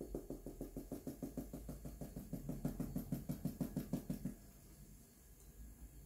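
Rapid, even tapping on a plastic powdered-sugar container held over a glass jar, about seven taps a second, shaking a little sugar into the mix; it stops about four seconds in.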